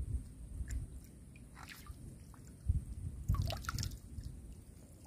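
Small splashes and drips of water close by at the water's edge, with light knocks. There is a louder cluster of quick splashes a little under three seconds in.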